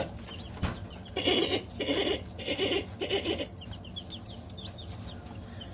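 A chicken gives four rough, raspy calls in quick succession, then chicks peep softly and repeatedly.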